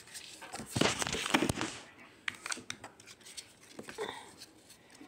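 Kinder egg foil wrapper crinkling for about a second, then scattered small clicks and ticks of plastic toy-capsule pieces being handled.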